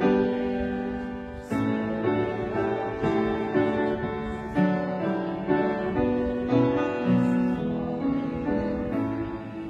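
Piano playing a slow piece of chords, a new chord struck about every half second to a second and left to ring.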